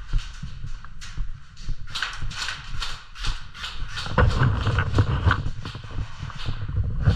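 Quick footsteps on a hard floor, with knocks and rattles of gear, getting heavier about four seconds in.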